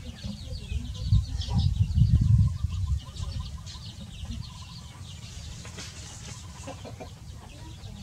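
A brood of chicks peeping continually in short high chirps, with a hen clucking now and then as she scratches and forages among them. A low rumble is loudest between about one and three seconds in.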